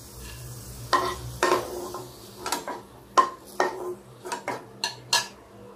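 Slotted spatula scraping and knocking against a kadai as fried raisins are scooped out of hot ghee, about nine sharp knocks scattered through, over a faint sizzle of the ghee.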